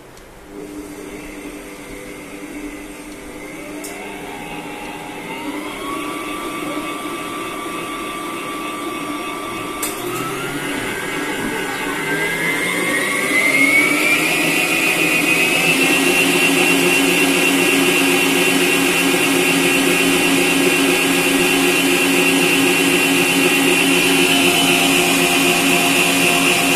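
Sokany planetary stand mixer starting up and whisking with its wire whisk, being turned up through its speed settings: the motor whine rises in pitch in several steps and grows louder, then holds steady at high speed from about halfway.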